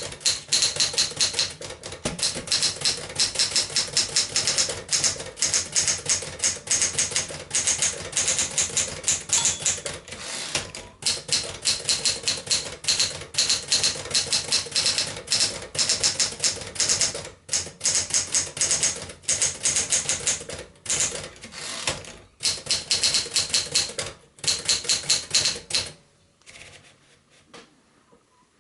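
Penncrest Caravelle 10 manual portable typewriter, with a Smith-Corona 5AX series mechanism, being typed on: fast, uneven runs of keystrokes clacking, broken by short pauses. The typing stops near the end.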